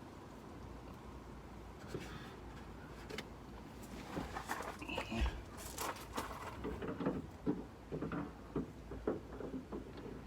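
Hands handling and fitting a replacement plastic liftgate switch into the tailgate: a run of small, irregular clicks, taps and rustles that begins a few seconds in.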